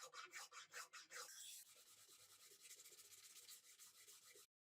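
Faint rhythmic rubbing strokes, about four or five a second, turning fainter and quicker after a second and a half, then cutting off suddenly near the end.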